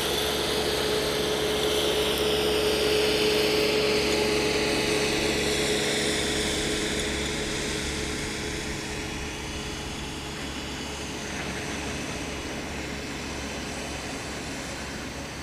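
Twin small electric motors and propellers of a micro RC airplane whining in flight, the pitch wavering as it turns, growing gradually fainter after about three seconds as it flies away.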